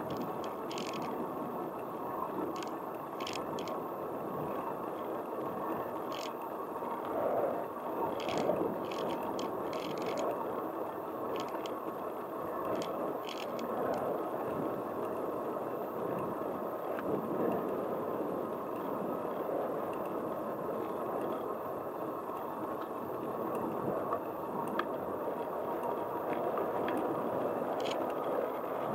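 Bicycle riding along a paved street: a steady rush of tyre and wind noise, with scattered light clicks and rattles from the bike.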